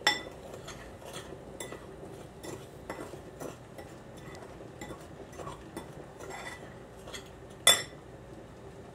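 A spoon stirring powdered pectin into sugar in a ceramic bowl, scraping and tapping against the bowl in a run of small irregular clicks, with a sharp clink at the start and a louder one near the end.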